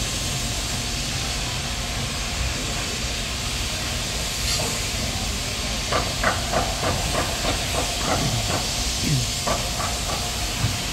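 Steady hissing construction-site noise, with a run of short sharp knocks and clanks starting about six seconds in and lasting some three seconds.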